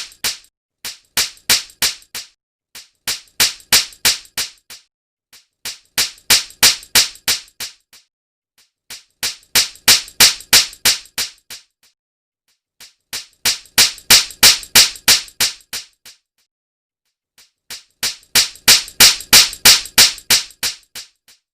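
A slap sound effect repeated in rapid runs of sharp smacks, about four a second. Each run swells louder and then fades, with short pauses between the runs.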